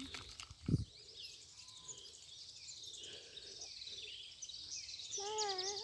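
Birds chirping and trilling in the open, with a single dull thump just under a second in and a short wavering call near the end.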